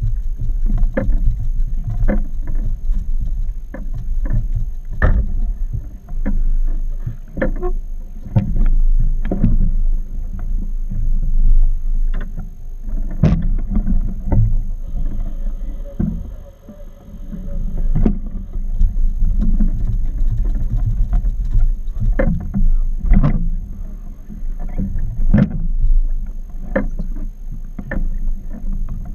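Small boat rocking on open water: irregular knocks and slaps over a steady low rumble.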